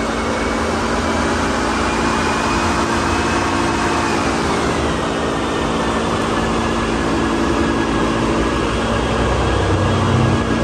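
The Ford Interceptor's twin-turbo 3.5-litre EcoBoost V6 runs steadily on an all-wheel-drive chassis dyno, mixed with the dyno's steady fan and roller noise. A high whine drops in pitch about halfway through.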